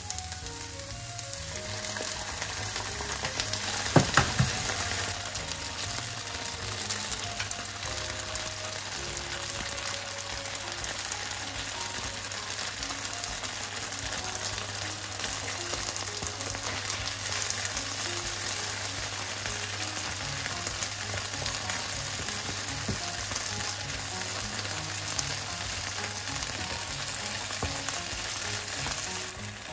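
Food sizzling steadily in a hot nonstick frying pan as noodles and vegetables are stir-fried and turned with a spatula. A few sharp knocks about four seconds in are the loudest moment.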